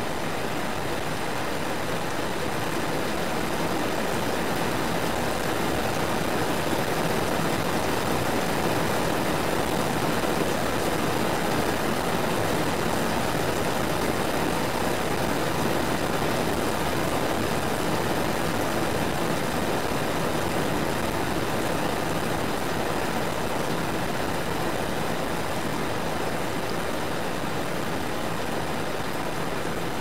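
Steady rain falling: a continuous, even hiss with no single drops or breaks standing out.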